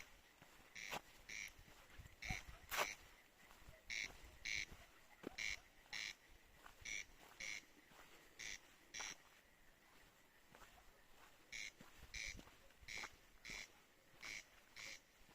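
Corncrake calling: a rasping two-note 'crex-crex' repeated every second and a half or so, with a pause of about two seconds partway through. A few faint clicks sit under it.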